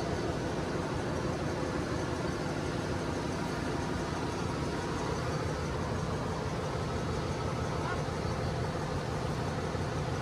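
Steady machinery drone of a ship's engine room, with a few faint steady tones over an even noise and no distinct knocks or tool strikes.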